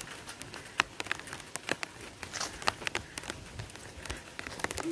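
Light rain: scattered, irregular sharp taps of raindrops landing close to the microphone over a faint hiss.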